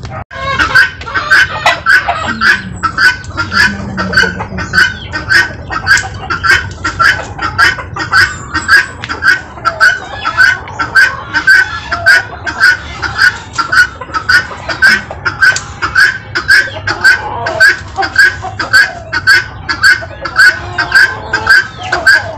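Helmeted guinea fowl giving a harsh, rhythmic alarm call, about two calls a second without a break: the distress call of a bird being held while its feathers are plucked.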